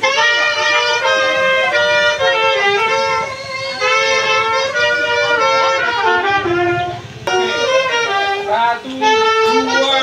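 Instrumental music: a melody of held notes stepping up and down in pitch, with short breaks between phrases.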